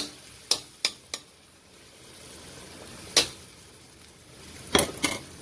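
A metal cooking utensil clinks against a pan while stir-frying cucumber: about six sharp knocks, scattered through the seconds, over a faint steady sizzle of the vegetables after a little water has gone in.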